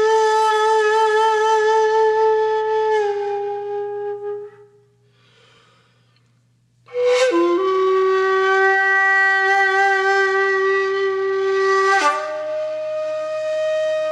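Shakuhachi bamboo flute playing slow honkyoku-style music in long held notes. The first note fades out about four seconds in and is followed by a near-silent pause of about two seconds. Then comes a sharp attack that bends down in pitch into another long note, with an accented change to a new note near the end.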